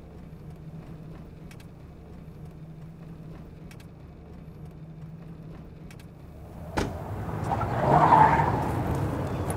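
Car running with a steady low hum, then a sharp click about seven seconds in and a louder rush of noise that swells and stays up near the end.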